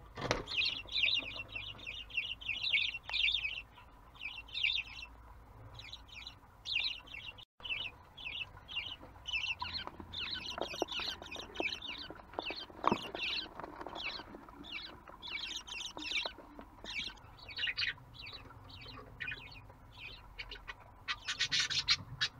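Budgerigars chirping and chattering in quick bursts of high, scratchy calls, with a few short knocks near the middle.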